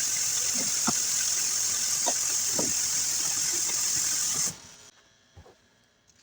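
Tap water running steadily onto a sudsy sponge, with a few soft squelches as the sponge is squeezed. The water shuts off abruptly about four and a half seconds in, leaving faint squishes of the wet sponge.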